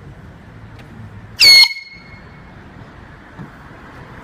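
Handheld canned air horn giving one short, very loud, high-pitched blast about a second and a half in, lasting about a quarter of a second.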